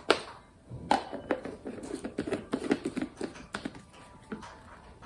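Hands handling a plastic baby bottle: a few sharp clicks in the first second and a half, then a run of small, quick taps and clicks.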